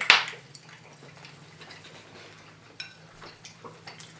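Quiet eating sounds while chewing steak: one sharp click right at the start, then scattered soft clicks, over a steady low hum.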